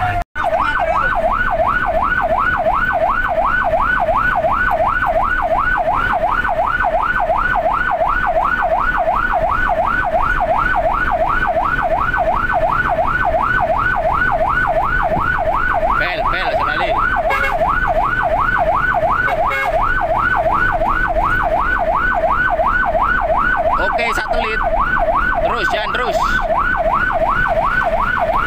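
Emergency vehicle's electronic siren on fast yelp, its pitch rising and falling rapidly several times a second without a break, heard from inside the cab over engine and road rumble.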